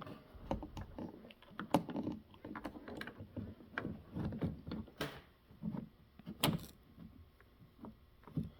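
Irregular metallic clicks, taps and light rattles as a car door lock cylinder is handled and pushed into the door, with two louder scraping knocks about five and six and a half seconds in.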